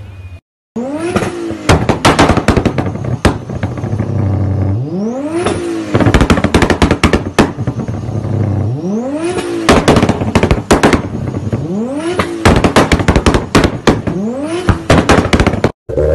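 Toyota 86's flat-four engine revved about four times, each rev rising and dropping away into a rapid string of anti-lag pops and bangs from the exhaust.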